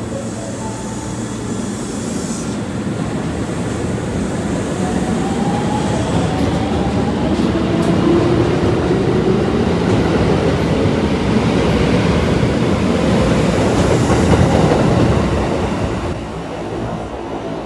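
Kintetsu 7000-series metro train pulling away from the platform: a rising whine from its motors as it accelerates, over a rumble of wheels and cars that grows louder as the train passes and falls away in the last few seconds as it leaves.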